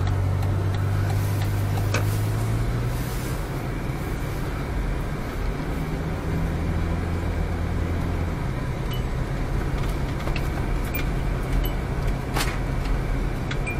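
Car engine and tyre noise heard from inside the cabin while driving on a snow-covered road. The engine's low hum shifts in pitch a few times as it runs, and there is a sharp click near the end.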